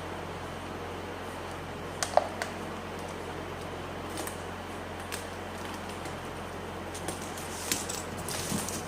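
Scattered light clicks and handling noises from a small object being handled, the sharpest pair about two seconds in, over a steady low electrical hum.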